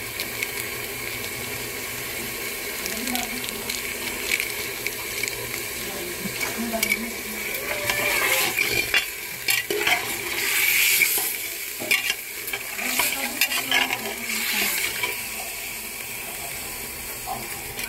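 Meat chunks sizzling in hot oil in a pressure cooker, browning with freshly added ginger-garlic paste, while a metal slotted spoon stirs them with scraping and clinking against the pot. The stirring gets louder for a few seconds about halfway through.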